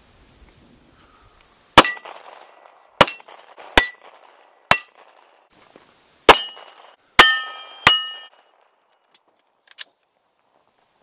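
Seven pistol shots striking steel targets, each hit answered by a clear metallic ring that fades within about half a second. The first four hits ring one high tone; the last three ring a lower set of tones from a second plate.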